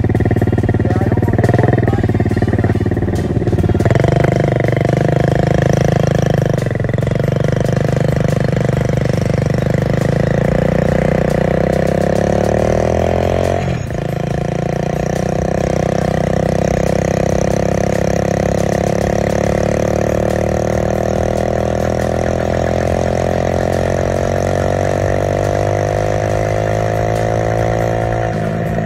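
A vehicle engine running steadily under way. Its pitch steps up about four seconds in and drops sharply for a moment about halfway through, then settles into a steady run again.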